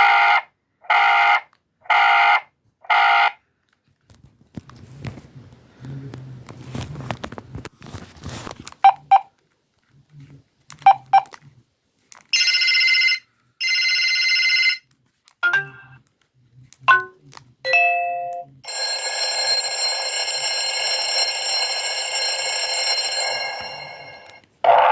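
BlackBerry Curve 8520 smartphone playing a string of different ringtone previews through its speaker. First come four short, even beeps; after some clicking and handling noise come single short tones, a double electronic ring, a few brief chirps, and a long held tone that fades out near the end.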